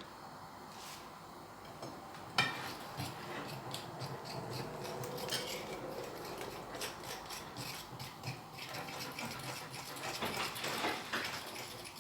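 Thick batter being mixed in a deep bowl with a utensil: a knock about two seconds in, then continuous quick scraping and clinking against the bowl.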